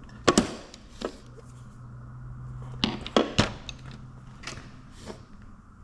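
Sharp metal clacks and clinks of hand tools and a toolbox drawer being handled: about seven separate knocks, the loudest near the start and three close together around three seconds in, over a faint low hum.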